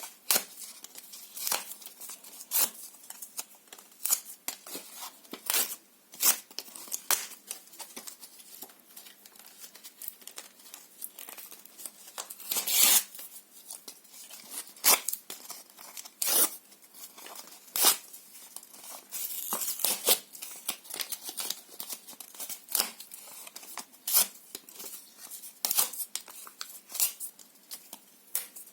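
Paper and cardboard being torn by hand, close up: a steady series of short, sharp rips with crinkling between them, about one or two a second, and a longer drawn-out tear about halfway through.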